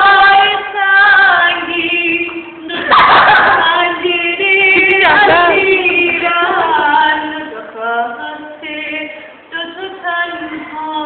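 Several high voices singing together, unaccompanied, in held notes that change every half second or so. About three seconds in there is a brief loud, noisy burst over the singing.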